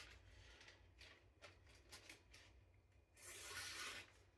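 Faint papery rasp of a sharpened knife edge slicing through a sheet of lunch paper, in short starting-and-stopping strokes, with one longer cut about three seconds in.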